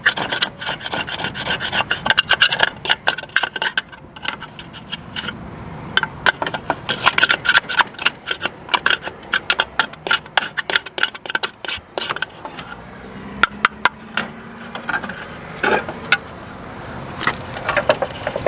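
Hard, dried mud-dauber nest mud being scraped and knocked out of a Suburban RV furnace's outer cover: a busy run of rasping scrapes and sharp clicks that thins out toward the end.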